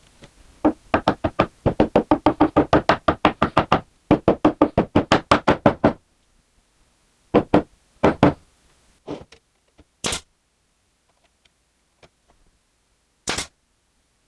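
A hammer knocking a glued pallet-wood divider into place: a fast, even run of knocks, about five a second, for roughly five seconds, then a few single, sharper knocks spaced out.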